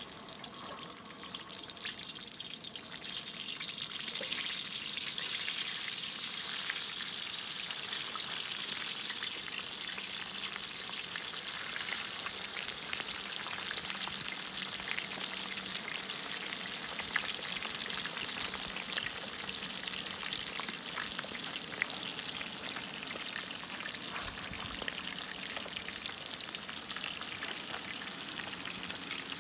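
Hot oil sizzling and crackling in a wide steel cooking disc as a whole fish and a chili pepper fry in it. The sizzle swells over the first few seconds, then holds steady, dotted with small pops.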